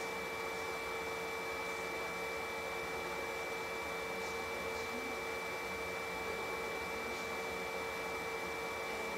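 Electronic ignition blower of an ESSE AutoBlaze stove running steadily, blowing hot air into the firebox to light the wood: an even whirring hiss with a constant hum and a high whine.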